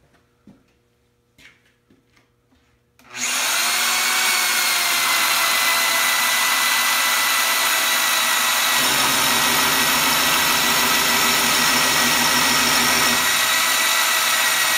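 Tubing notcher's deep-cut hole saw motor starting up about three seconds in and running with a steady whine. From about nine to thirteen seconds in, a low rough chatter joins it as the hole saw cuts into the clamped square tube.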